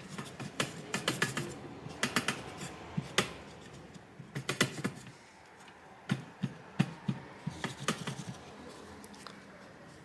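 Tissue paper scrubbing dried, rubbery thermal paste off a graphics card cooler's copper cold plate with isopropyl alcohol, with many irregular light clicks and taps against the cooler. The clicking thins out for the last second or so.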